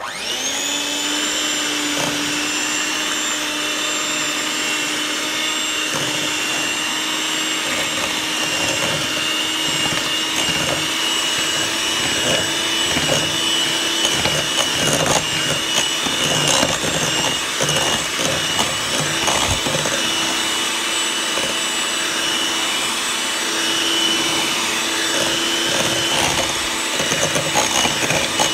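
Electric hand mixer switched on, its motor whine rising briefly and then running steadily, with irregular clicks from the wire beaters against the bowl as they beat eggs into creamed butter.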